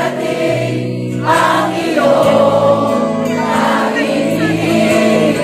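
A live band playing a slow pop ballad while many voices sing the melody together, the audience singing along with the singer.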